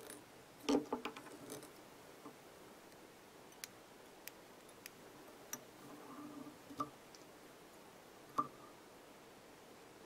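Faint, scattered clicks and small taps of hand work at a fly-tying vise while the tying thread is whip-finished at the fly's head, with louder clicks about a second in and near the end.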